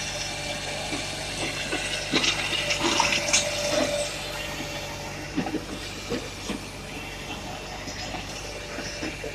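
Hakki Pilke 2X firewood processor working a log, driven by a tractor engine running steadily, with hissing noise and knocks strongest about two to four seconds in, a short whine near four seconds, and a few sharp knocks later on.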